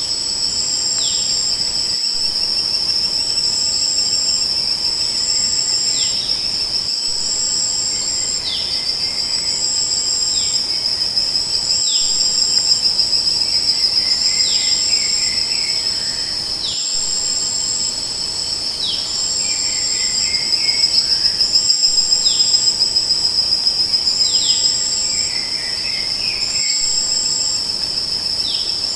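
A chorus of crickets and other insects: a continuous high trill, with a second insect chirping in short, evenly repeated pulses above it. Short falling notes recur every couple of seconds.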